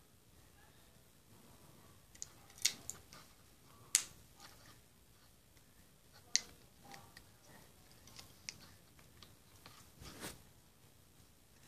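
Irregular sharp plastic clicks and taps from handling a battery-powered LED light-up letter sign, the loudest about a third of the way in.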